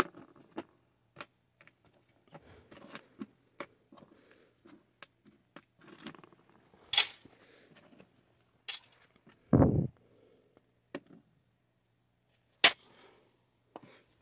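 Irregular clicks, clinks and knocks of small metal parts and tools being handled while a butane camping stove is taken apart for scrap, with one heavier low thud about ten seconds in.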